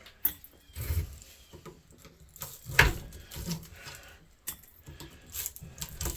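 Hand tools prying and scraping at a ceiling fan motor's stator while copper windings are being pulled out: scattered metal clicks and scrapes, with the loudest knock about three seconds in.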